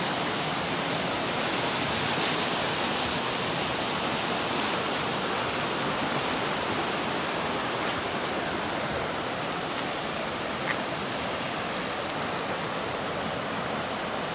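Fast, shallow mountain river rushing over rocks: a steady, even rush of white water.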